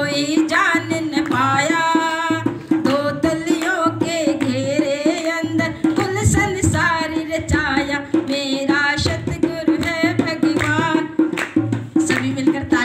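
A woman singing a Hindi devotional bhajan in long, melodic lines into a microphone, accompanied by a dholak hand drum keeping a steady rhythm.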